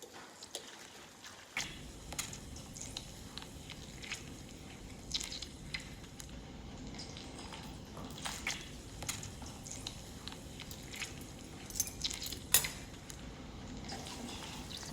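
Egg-white-breaded chicken tenders frying in hot chicken fat (schmaltz) in a fry pan: a steady sizzle that comes up about a second and a half in, with scattered pops and light clicks of a utensil against the pan, the sharpest near the end.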